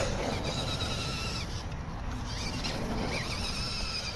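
Small electric motor and gearbox of an RC rock crawler whining as it drives, the whine dropping away briefly in the middle. A sharp knock comes right at the start.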